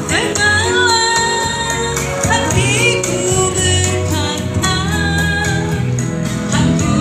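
A voice singing a melody in held, wavering notes over instrumental backing music with a steady bass line.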